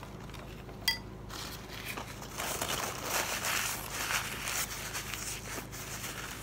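Paper napkin rustling and crinkling as greasy fingers are rubbed clean with it, after a short clink about a second in.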